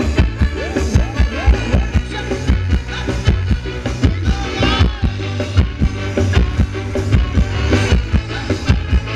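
A live band playing Thai ram wong dance music, with a steady drum beat over a strong bass line.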